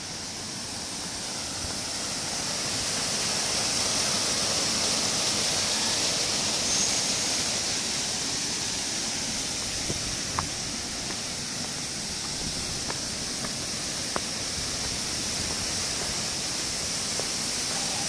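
Steady rushing of a waterfall, getting louder over the first few seconds as it is approached and then holding, with a few faint clicks.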